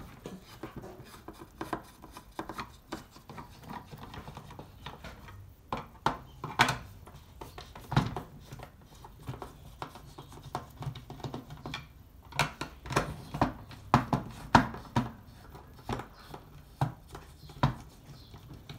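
Phillips screwdriver loosening the screws of a plastic isolator switch casing: scattered clicks and scraping of the driver in the screw heads and against the plastic housing, with sharper clicks coming closer together in the last several seconds.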